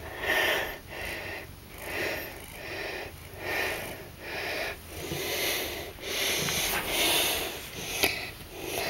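Close breathing, coming and going about once a second, with one sharp click near the end.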